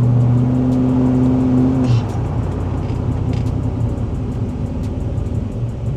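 Car cabin driving noise: a steady engine drone that drops away abruptly about two seconds in, leaving a low road rumble.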